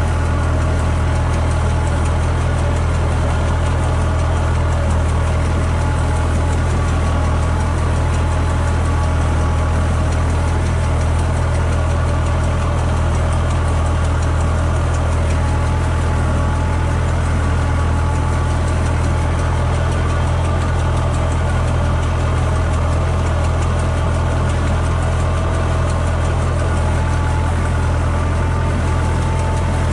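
Tractor engine running steadily while driving an air-blast orchard sprayer that is misting the trees. A deep, even hum with a fainter steady whine above it.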